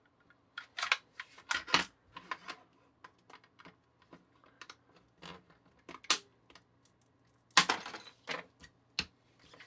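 Irregular clicks and knocks of a plastic toy cap gun being handled and worked apart by hand, with a louder cluster about a second and a half in and another near eight seconds.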